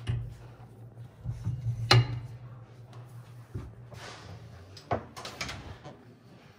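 Metal clicks and knocks as a turbocharger core assembly is clamped by hand into a high-speed balancing machine, the loudest knock about two seconds in, over a low steady hum.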